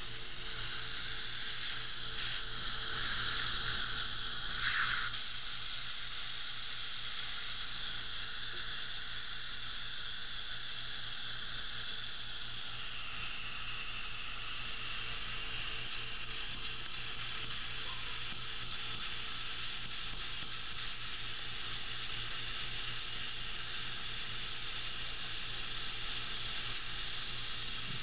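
Safe-Vac screened HVE dental suction tip drawing air steadily, an even hiss of high-volume evacuation.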